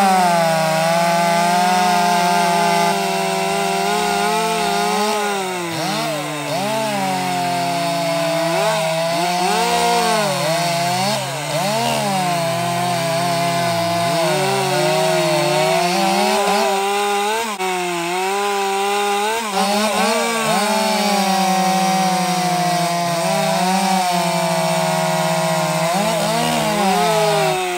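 Two-stroke chainsaw running at high revs and cutting wood, its pitch dipping under load and climbing back several times.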